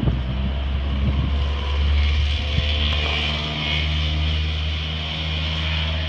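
A motor vehicle driving past on a rain-wet road: a steady low engine hum under a tyre hiss that swells over the first couple of seconds and holds.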